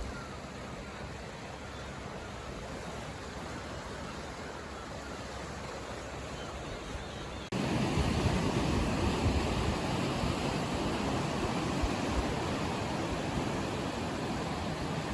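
Steady rush of sea waves on the shore with wind, which gets abruptly louder and fuller about halfway through.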